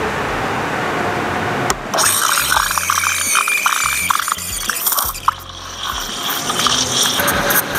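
Steam wand of an Otten Retto Blue espresso machine hissing into a pitcher of milk to froth it. About two seconds in, the steady hiss turns into a brighter, irregular crackling hiss as air is drawn into the milk. Background music plays underneath.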